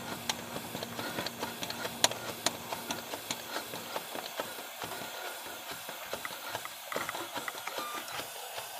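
Hand primer pump on a 2001 6.6 L Duramax (LB7) fuel filter head being worked by hand: small irregular clicks from the plunger and a faint hiss of air escaping the open plastic bleeder screw as the fuel filter is bled of air.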